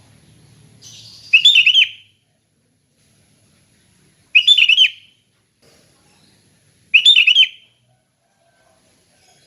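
Sooty-headed bulbul (kutilang) singing its relaxed, open ngeplong song: three short phrases of quick notes, each under a second long, coming about every three seconds.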